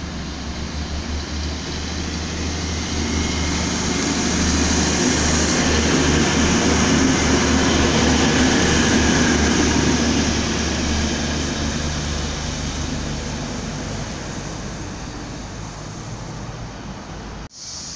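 DB Class 612 diesel multiple unit passing close by: engine drone and wheel and rail noise build up, peak as it goes past, then fade as it moves away. The sound drops out briefly near the end.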